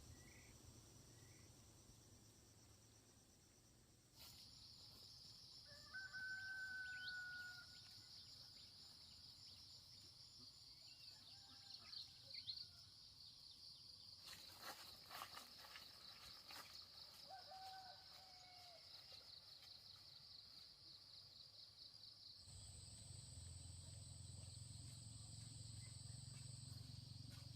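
Faint rural ambience: insects chirring steadily, with a rooster crowing about six seconds in and again near eighteen seconds.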